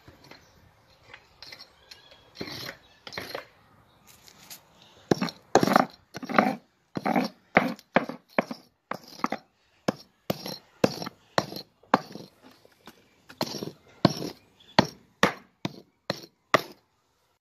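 A hand tool knocking and scraping old mortar out of the joints between stone patio slabs: sharp, irregular strikes, about two a second, some drawn out into a short scrape.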